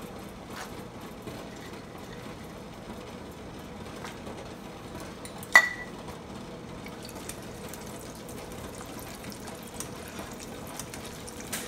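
Cashew nuts frying in hot vegetable oil in a saucepan: a steady soft sizzle and bubbling. About halfway through there is one sharp metallic clink with a short ring.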